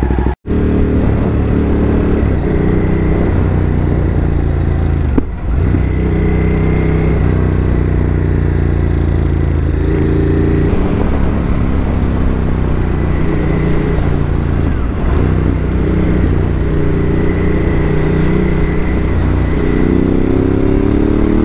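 Ducati Hypermotard 950's V-twin engine running on the road through its aftermarket exhaust, the engine note shifting in pitch. The note dips briefly twice and climbs near the end as the bike accelerates.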